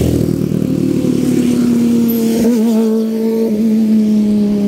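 A nearby engine running at a steady pitch, with a brief waver about halfway through.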